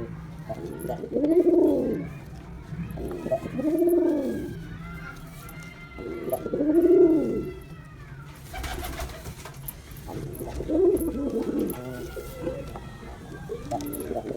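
Male pigeon cooing: about four drawn-out coos a few seconds apart, each rising and then falling in pitch. Fainter, higher chirping comes between the first coos, and a short burst of noise comes about two-thirds of the way through.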